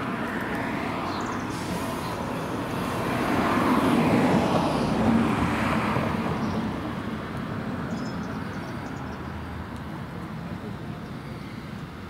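A vehicle passing along the street: road and engine noise that swells to a peak about four seconds in, then fades away.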